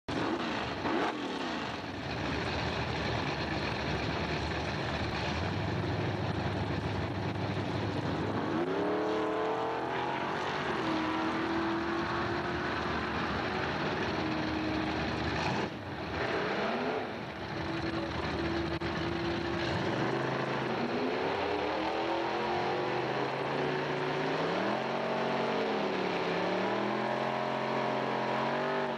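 1968 Pontiac Firebird's 400 V8 at the line. For the first several seconds it is a dense, even roar of engine and spinning tyres from a burnout. Then the engine settles into a steady note and, over the last third, is blipped up and down repeatedly as the car stages.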